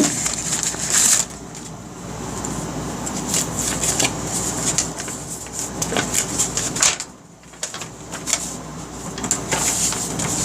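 Paper rustling and crinkling as an instruction sheet is handled and unfolded, with small irregular clicks and taps. A steady low hum runs underneath.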